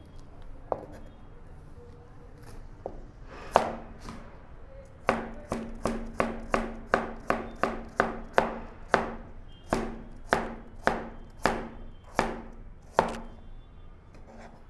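Kitchen knife chopping a carrot on a plastic cutting board. A few scattered knocks come first, then from about five seconds in a steady run of sharp knocks, about two a second, which stops shortly before the end.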